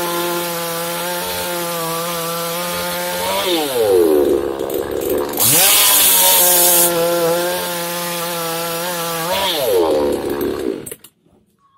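Kuban two-stroke chainsaw running at full throttle, cutting through a log with its freshly sharpened chain. The revs fall away twice as the throttle is let off and climb again in between, with a louder, harsher stretch of cutting about halfway, and the sound cuts off suddenly near the end.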